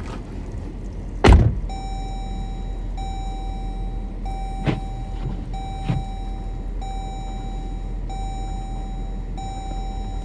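A patrol car door thunks open about a second in. The car's door-open warning chime follows, a steady beeping tone that stops briefly about every second and a quarter, over the low hum of the idling engine, with two lighter knocks around the middle.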